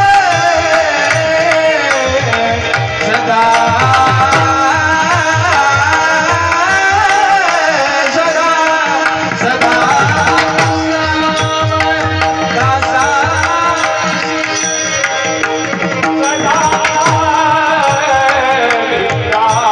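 Marathi kirtan singing: a voice sings a long, ornamented devotional melody over a held drone, with hand-drum strokes beating a steady rhythm beneath.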